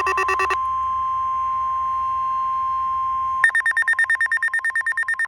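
Electronic emergency alert tones: rapid pulsing beeps give way, about half a second in, to a single steady tone, the NOAA Weather Radio warning alarm tone, held for about three seconds. Then a higher, rapidly pulsing beep of about eight pulses a second runs until it cuts off at the end.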